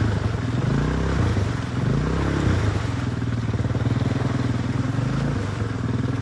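ATV engine revving hard, the revs rising and falling about a second in and then holding steadier, as it works through deep mud.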